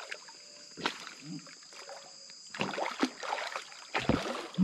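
Water splashing and knocks around a small fishing boat, with a dense run of irregular splashes and knocks in the second half.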